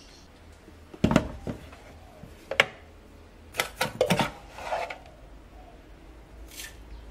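Light knocks and clatter of plastic kitchenware handled at a stainless steel sink while a scoop digs sodium percarbonate powder out of a hinged plastic box. There is a knock about a second in, another midway, and a quick cluster a little later.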